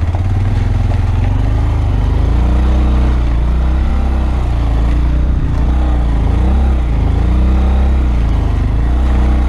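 2015 Honda Grom's 125 cc single-cylinder engine being ridden offroad, its revs rising and falling over and over as the throttle is worked. Heard through a helmet camera's built-in microphone.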